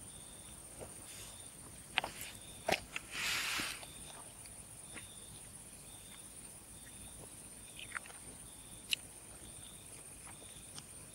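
Crickets chirping: a steady high trill with a fainter chirp repeating about once a second. Over it come a few sharp clicks, loudest about two to three seconds in and again near nine seconds, and a brief hiss a little after three seconds.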